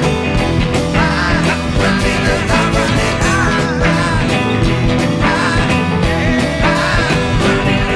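Rock music playing at a steady loud level, with a steady beat, guitar and a voice singing.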